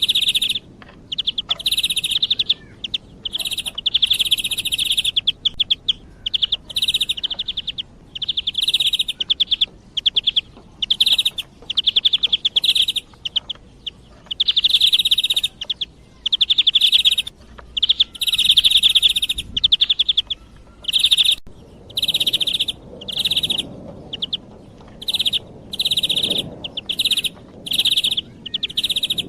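Recorded calls of a European bee-eater (the 'khudri') played as a hunting lure: rolling, trilled calls repeated over and over in phrases of about half a second to a second and a half with short gaps between.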